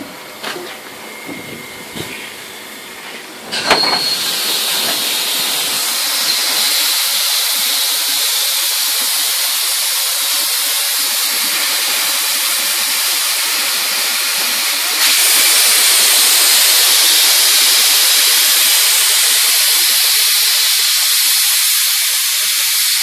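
Steam locomotive 03 1010 venting steam at its cylinder: a sudden burst about three and a half seconds in, then a steady loud hiss, most likely from the open cylinder drain cocks, that grows louder about fifteen seconds in.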